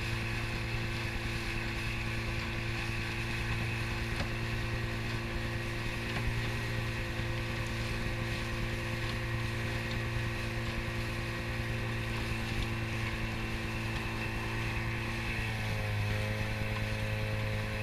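Tomos 10 two-stroke outboard motor running steadily at cruising speed, with water rushing along the hull of the small boat. Its note shifts slightly about two seconds before the end.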